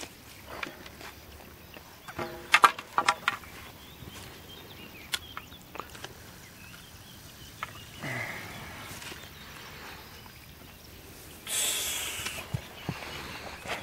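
Water splashing at the water's edge as a grass carp thrashes beside a landing net. A sharp cluster of splashes comes about two to three seconds in, and a longer wash of water comes near the end as the net is handled.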